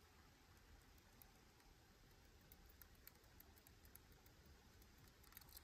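Faint, scattered little clicks of a lock pick working the pins inside a Miwa U9 lock cylinder, coming more often near the end, over near silence.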